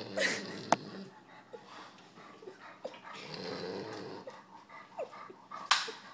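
French bulldog breathing noisily through its nose with a large pig ear clamped in its mouth. Two sharp clicks, one about a second in and a louder one near the end.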